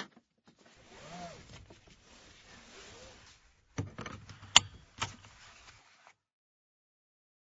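Nissan Note seat belt: the webbing is pulled out of its retractor for about three seconds, then a cluster of sharp clicks, the loudest about four and a half seconds in, as the tongue is locked into the buckle. A brief click at the very start.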